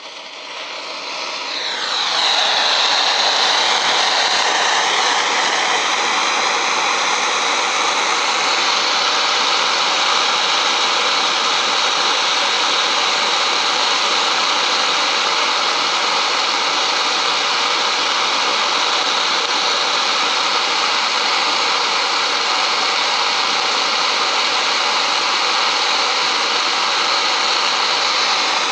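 Portable gas blowtorch being lit and opened up. A whistle falls in pitch as the flame builds over the first two seconds, then the torch burns with a loud, steady rushing hiss.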